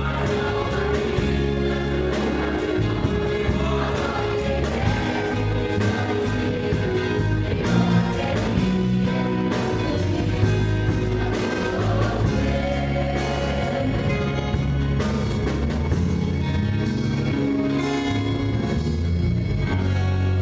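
A choir singing gospel music with instrumental accompaniment, a strong bass line and a steady beat.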